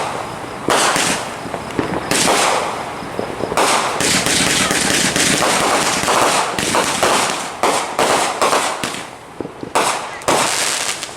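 Consumer fireworks going off in quick succession: sharp bangs one after another, mixed with crackling bursts.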